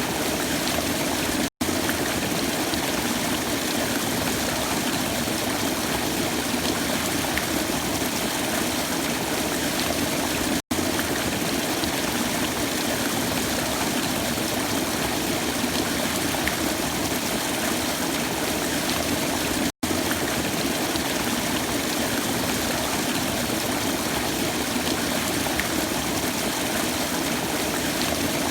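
Waterfall: steady rushing water. It cuts out for an instant three times, about every nine seconds.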